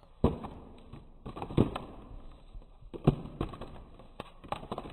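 Trading cards dropping one after another onto a pile of cards. Each lands with a short, light tap, at irregular intervals of a few a second.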